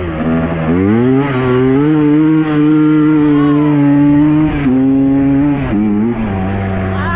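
2000 Yamaha Blaster's single-cylinder two-stroke engine revving hard under way. The pitch climbs about a second in and holds high for about three seconds. It then drops in steps near the end as the throttle comes off or it shifts.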